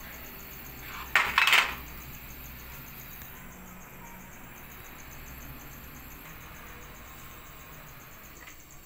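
China crockery clinking: two quick clatters of dishes being handled about a second in, then only a faint steady background.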